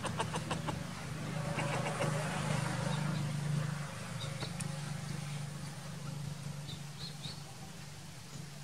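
Steady low hum of a running engine, with a quick run of clicks near the start and a few short high chirps later on.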